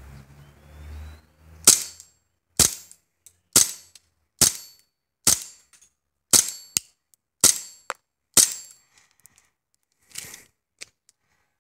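KJW KP-01 Sig Sauer P226 gas blowback airsoft pistol firing eight single shots about a second apart, each a sharp pop, followed by a fainter shot near the end.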